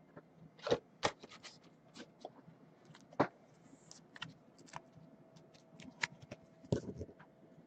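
Trading cards and stiff plastic card holders being handled: scattered light rustles and clicks, with a few sharper taps and a small cluster of them near the end.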